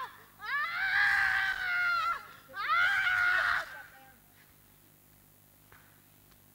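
A person letting out two long, high-pitched screams, each rising and then falling in pitch, ending about four seconds in.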